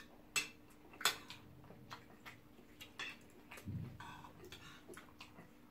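Metal spoons clinking and scraping against ceramic plates of rice and stew, a scattering of short, light clicks, several in a second or so.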